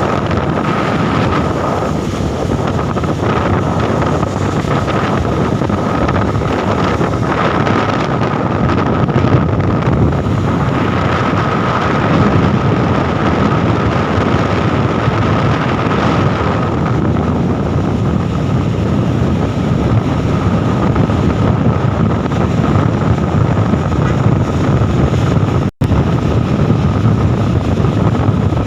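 Truck on the move: steady vehicle noise with heavy wind buffeting on the microphone and a constant whine. The sound cuts out for an instant near the end.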